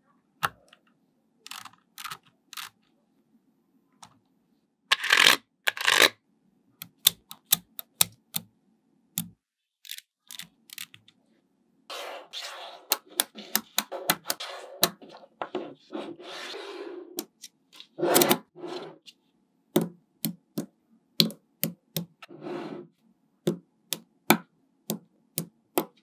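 Small magnetic balls clicking sharply as they snap against one another, in irregular single clicks, with longer stretches of rattling clatter around the middle as clusters of balls are pressed and shifted into shape.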